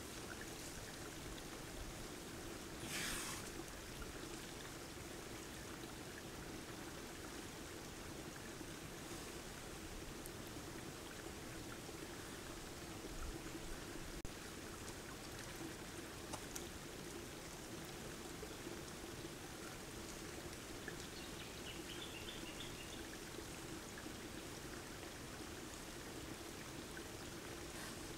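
Sambar stag wallowing in a mud wallow: faint sloshing of mud and water over a steady hiss, with one louder splash about three seconds in.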